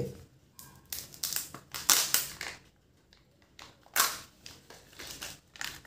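Foil wrapper of a Kinder Joy egg crinkling and tearing as it is peeled off by hand, in a series of short crackles.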